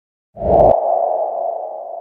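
Editing sound effect for a screen transition: a sudden low thump with a ringing tone that slowly fades away.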